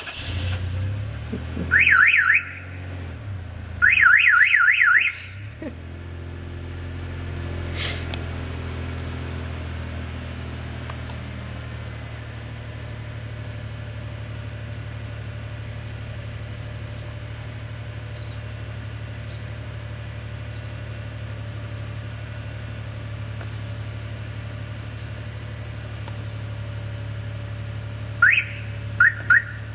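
Car alarm siren wired into the flat-4 trailer-light circuit, so that braking or the left turn signal sets it off. It sounds two short bursts of fast rising-and-falling warble, then a brief whoop and two short chirps near the end, over the steady low hum of the vehicle's engine idling.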